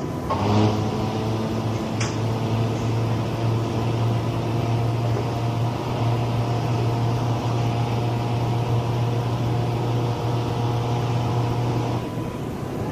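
A steady low-pitched drone with a stack of overtones, starting about half a second in and cutting off about a second before the end, with one brief click about two seconds in.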